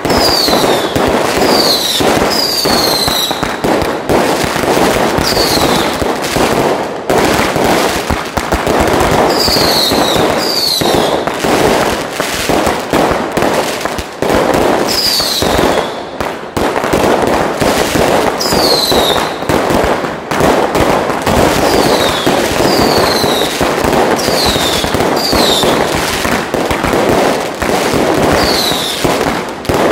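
Dense, continuous crackling of strings of firecrackers and bursting aerial fireworks, with short falling whistles recurring every second or two.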